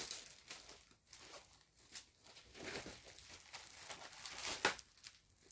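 Faint rustling and handling sounds, like things being shuffled and crinkled, with a sharper click about four and a half seconds in.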